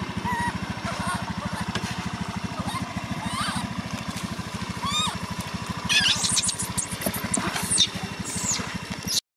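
A motorbike engine idles with a fast, even putter, while a baby macaque gives high rising-and-falling squeals and screams, more often from about six seconds in.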